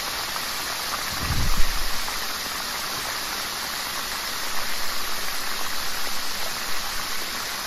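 Minced lemongrass sizzling in hot oil in a nonstick wok, a steady frying hiss. A wooden spatula stirs it. There is a dull low thump about a second and a half in, and then a run of quick stirring strokes, about four or five a second.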